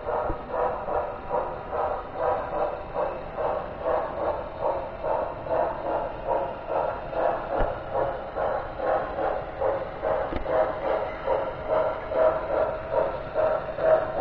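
HO scale model train running on its track, a steady rhythmic pulsing about two to three beats a second.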